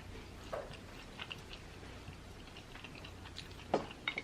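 A person chewing fried chicken wings close to the microphone: soft, scattered mouth clicks and smacks, with a louder smack near the end.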